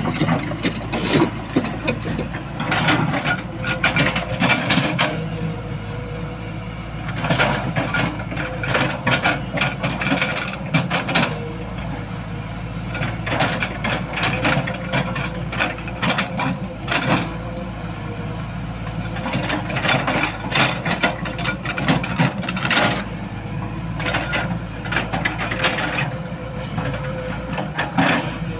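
Tata Hitachi EX200LC hydraulic excavator's diesel engine running steadily under load, with repeated rasping scrapes of a few seconds each as the steel bucket drags and cuts through soil on a canal bank.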